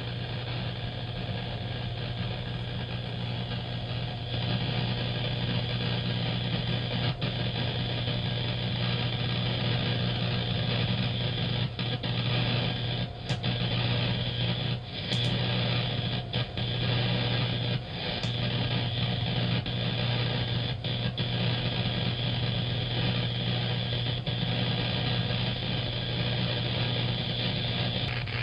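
Faulty Southern California Edison power equipment giving off a loud, steady low electrical hum, a noise that starts up when the wind rises. The hum grows louder about four seconds in and cuts out for a moment several times in the middle.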